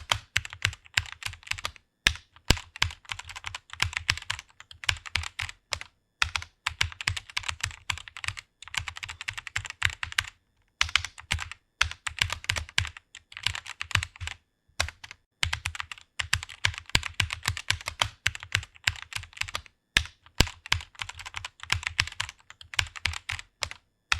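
Computer keyboard typing: quick runs of keystrokes with brief pauses every few seconds.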